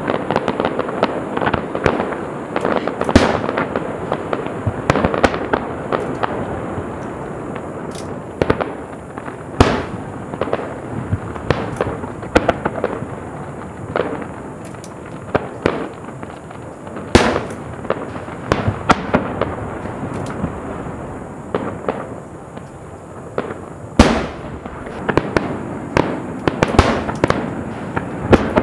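Aerial fireworks display: a dense, steady crackle of bursting shells and crackling stars, with many sharp bangs among it, the loudest about 3, 10, 17 and 24 seconds in.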